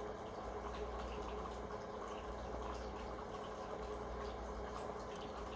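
Faint sipping of a thick milkshake through a straw, over a steady low hum.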